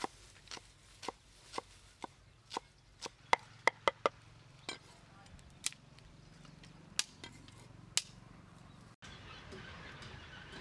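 A cleaver chopping on a wooden chopping board: sharp knocks about twice a second, then a quick run of four a little over three seconds in. The strokes slow and stop about eight seconds in, and after a brief cut there is only a faint steady hiss.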